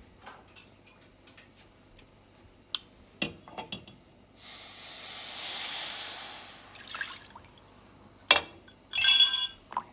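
Blended sorrel liquid poured from a glass jug into a hot stainless steel pan of toasted flour: a hissing pour lasting about two seconds in the middle, after a few light taps of a wooden spoon. Near the end come two loud knocks, the second briefly ringing.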